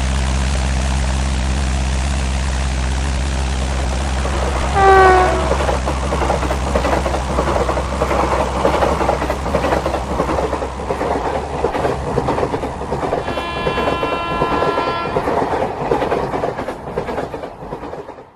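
Express train passing: a steady low hum from the approaching locomotive, then its horn about five seconds in, loudest here, with the pitch dropping as it goes by. The clatter of wheels over the rail joints follows as the coaches pass, with a second, steady horn blast near the end before the sound cuts off suddenly.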